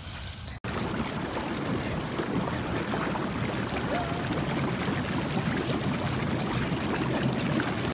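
Hot tub jets churning the water: a steady rushing, bubbling noise that starts abruptly just over half a second in.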